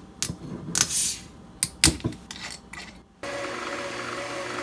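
Light clicks, knocks and a short rustle of hands and small containers while an ingredient is added to a stand mixer's bowl of flour. After a short gap about three seconds in, steady background music with a wavering tone starts abruptly.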